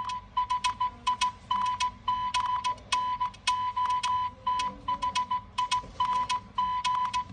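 Nothing Phone (1) electronic ringtone: a sparse pattern of short ticks and clicks over brief beeps at one steady pitch, in an uneven, syncopated rhythm of about three to four hits a second.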